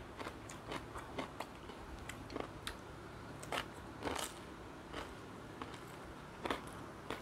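Close-miked chewing of crunchy fried dried fish with rice by hand: a string of short, irregular crunches.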